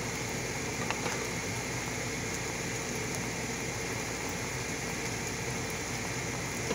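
Steady hiss of shrimp simmering in their juices in a pan, mixed with the steady noise of a ceiling fan. A spatula clicks against the pan about a second in and again near the end.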